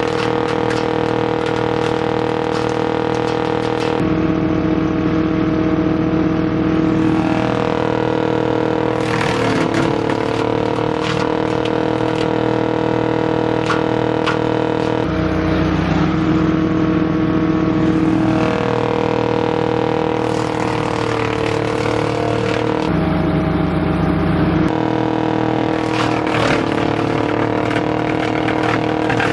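An 18 HP DR wood chipper's Briggs & Stratton engine running steadily. Its note sags and recovers several times, with rattling and knocking in between.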